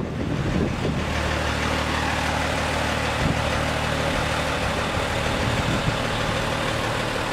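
Diesel engine of a Bronto Skylift F32 HDT aerial platform fire truck running steadily at low revs as the heavy truck creeps slowly forward.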